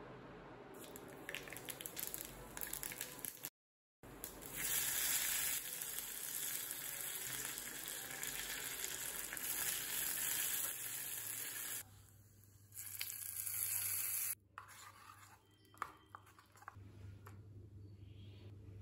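Tempering of mustard seeds, urad dal, curry leaves and dried red chilli sizzling in hot oil in a small tadka pan: crackling pops at first, then after a short break a louder, steady sizzle that drops away about twelve seconds in, with a brief second burst of sizzle before it goes quiet.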